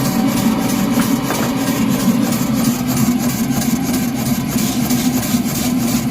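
Model 3-inch scale Fowler traction engine running under steam, with regular beats from its exhaust over the steady roar of its propane burner.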